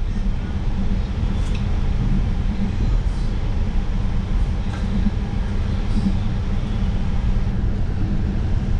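City bus in motion, a steady low rumble of engine and road noise heard from inside, with a few faint clicks or rattles.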